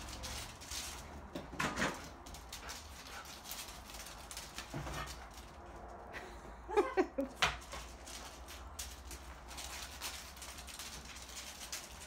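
Husky whining a few times, the loudest a quick run of short, pitched whines about seven seconds in.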